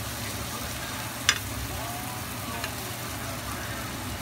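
Pork sisig sizzling with a steady hiss on a hot cast-iron sizzling plate as a metal utensil stirs and scrapes it, with a sharp clink of the utensil against the plate about a second in.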